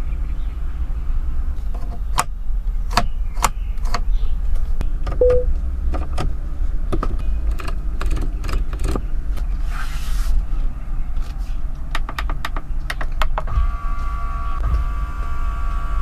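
Sharp clicks of the BYD Seagull's centre-console toggle switches being pressed one after another, over a steady low hum. Near the end the small electric motor of the rotating infotainment screen starts a steady whine as the screen turns.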